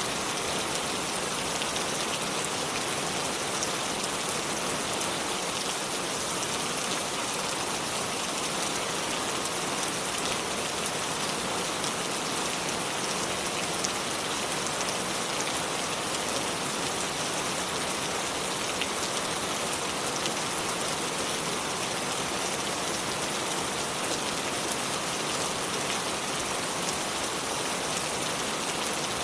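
Continuous splashing water: a dense, even hiss strongest in the high end, with fine drop-like ticks and no change in level.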